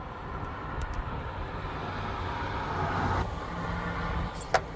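Car engine running, its pitch rising until about three seconds in, then dropping away. A sharp click near the end.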